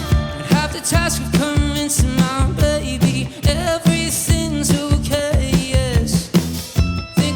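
Live band music: drums keeping a steady beat under bass, with a lead melody that slides and wavers between notes.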